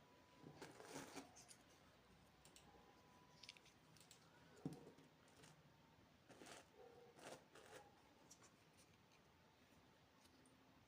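Near silence, broken by a few faint clicks and rustles: a cluster about a second in, a single sharp tick near the middle, and several more a little past halfway.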